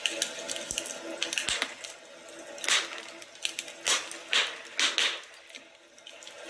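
Wood fire crackling, with many small sharp pops and several short bursts of hissing in the second half.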